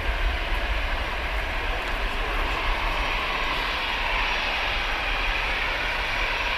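Jet engines of a twin-engine airliner taxiing: a steady whine and hiss over a low rumble, the hiss growing a little louder about halfway through as the aircraft turns toward the listener.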